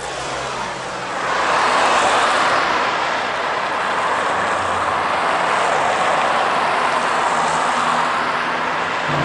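Steady rushing vehicle noise that swells about a second in and then holds.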